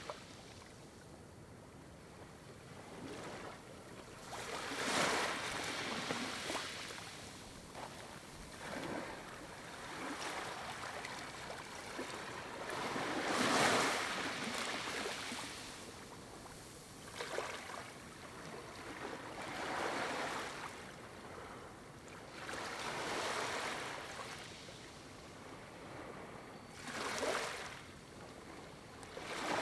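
Small waves lapping on a shore, each one swelling and washing in, then ebbing away, about every three to four seconds.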